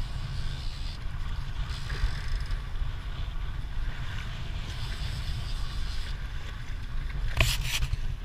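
Fishing boat running through open-sea chop: wind buffeting the microphone and water rushing and hissing along the hull, with one sharper splash of spray about seven and a half seconds in.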